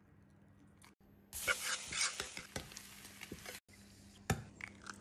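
A spoon scrapes faintly in a tub of soft wild garlic butter. From about a second and a half in, hot fat sizzles and spits loudly in a pan. Near the end a quieter crackle goes on, with one sharp knock about four seconds in.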